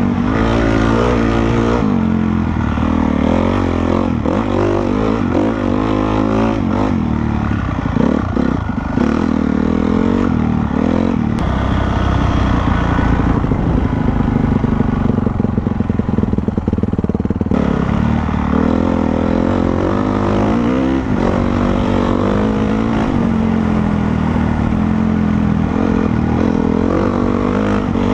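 Honda CRF450R's single-cylinder four-stroke engine being ridden hard, its note rising and falling again and again as the throttle is opened and closed.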